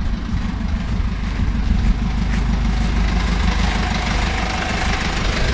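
Mercedes Sprinter van driving along a road towing a boat trailer, heard from outside the vehicle: a steady engine rumble mixed with tyre and wind noise.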